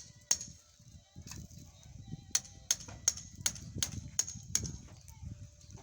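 Hammer blows on nails in framing lumber: a few single knocks, then a quick steady run of about seven strikes, nearly three a second. A low rumble runs underneath.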